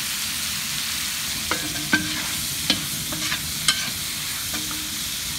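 Sausage slices sizzling in a large black iron pot as a long stainless-steel paddle stirs them. From about a second and a half in, the paddle scrapes and clanks against the pot every half second or so, and some strikes ring briefly. The sausage is being browned to render out its fat.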